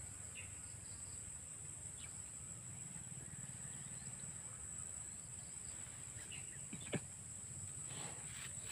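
Steady high-pitched drone of insects in the grass, over a low rumble, with a brief click about seven seconds in.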